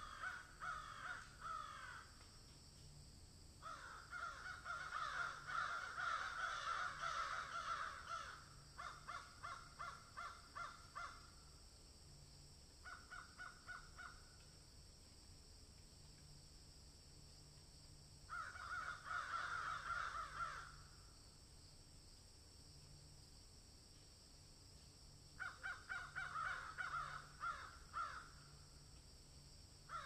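Harsh, rasping animal calls in about six bouts, from a second to several seconds long, with quiet gaps between them.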